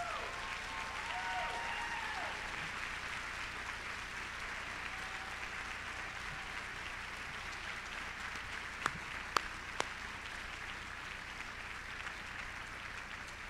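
Audience applauding steadily in a large hall, with a few voices calling out briefly at the start and three sharp cracks, louder than the rest, about nine seconds in.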